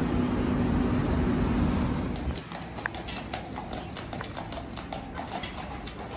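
A steady hum that stops about two seconds in, followed by an even run of sharp clacks, about four a second.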